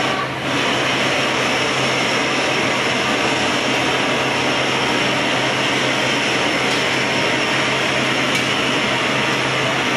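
Steady roar of the gas burners and their blowers in a glassblowing hot shop: a constant noisy rush over a low, even hum.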